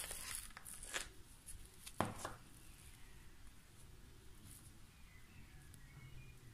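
Table knife spreading soft cheese over sandwich bread: a few short scrapes and taps in the first two seconds, the sharpest about two seconds in, then faint scraping.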